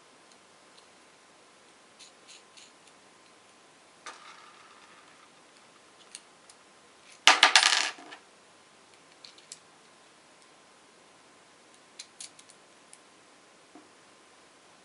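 Small metal parts, such as bolts or nuts, clattering onto a tabletop in one quick rattling burst about seven seconds in, with light clicks of small parts being handled before and after.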